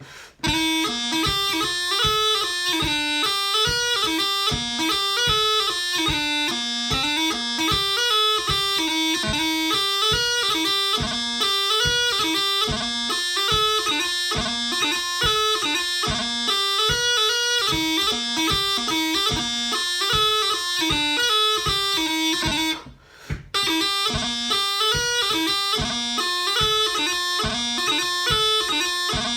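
Bagpipe playing a quick, up-tempo tune of fast-moving notes, with a short break in the playing about 23 seconds in.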